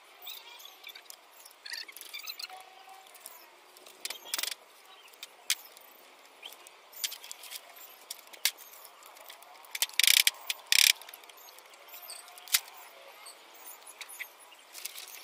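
Sheet of clear plastic greenhouse film crinkling and crackling as it is lifted and pulled, in scattered sharp crackles, the loudest pair about ten seconds in.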